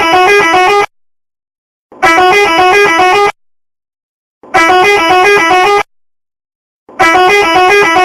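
Telolet bus horn, a multi-tone horn playing a quick alternating 'telolet' tune. It sounds in bursts of about a second and a half, four times, with silence between.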